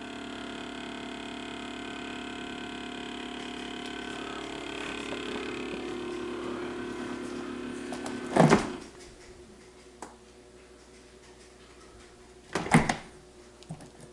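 Kenmore Elite French door refrigerator giving off a steady multi-tone hum, the abnormal running noise the owner complains of. About eight seconds in it cuts off with a loud thump, after which only a faint steady tone remains; a second loud thump comes near the end.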